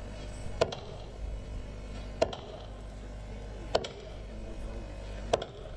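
Sharp percussion strikes from the dance's accompaniment, four single hits about a second and a half apart, each with a short ring, over a steady low hum.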